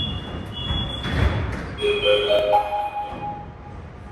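High electronic beeping from the platform screen doors' warning signal, with a thud about a second in. About two seconds in, the station public-address chime plays four rising notes that ring on and overlap, the prompt before a recorded platform announcement.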